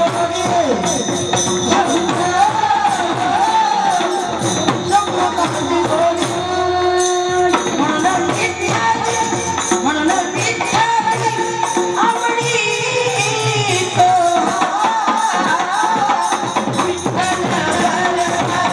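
A woman singing a Marathi folk devotional song, her voice rising and falling in long melodic lines over jingling hand percussion that keeps a steady quick beat.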